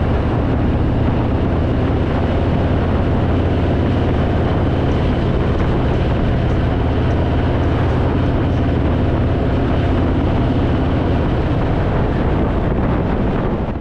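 Harley-Davidson V-twin engine running steadily while the motorcycle is ridden, with wind rushing past.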